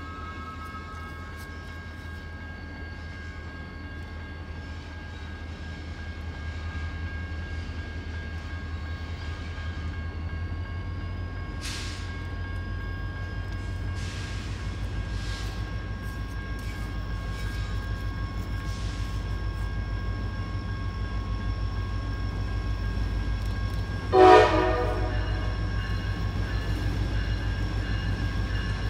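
A CSX SD40-3 diesel locomotive approaches with its engine rumble growing steadily louder and a steady high whine over it. Near the end comes one short, loud horn blast.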